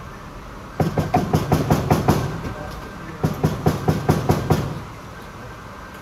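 Two quick runs of hard knocks, about seven or eight strikes each at roughly five or six a second, with a short pause between.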